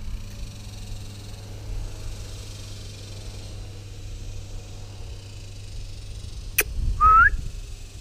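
A person whistles a short rising note near the end, a call whistle for the dog, just after a sharp click, over a steady low background rumble.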